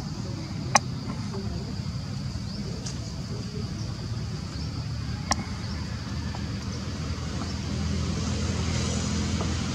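Outdoor background of a steady low rumble with a thin high hum over it, broken by two sharp clicks, one about a second in and one about five seconds in; the rumble grows louder near the end.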